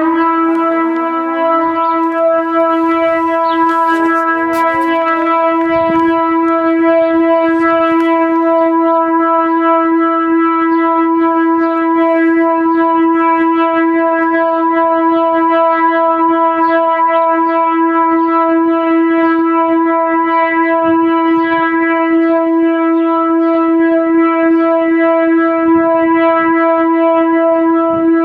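Danish civil-defence warning siren winding up at the start and then holding one loud steady tone. A second, more distant siren rises to pitch over the first few seconds.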